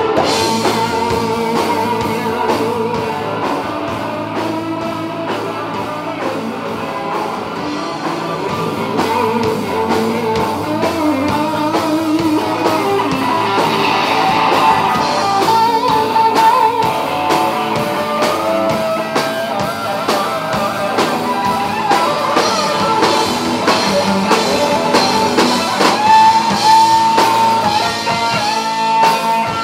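Live rock band playing loud through amplifiers: electric guitar lines over bass guitar and a drum kit, with no vocals.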